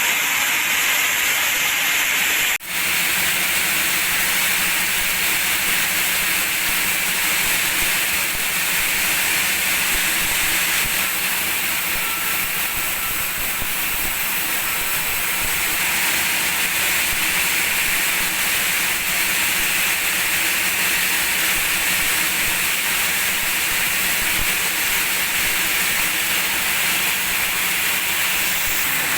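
Sawmill machinery running steadily: a constant, loud, hiss-like whirr that drops out for an instant about two and a half seconds in.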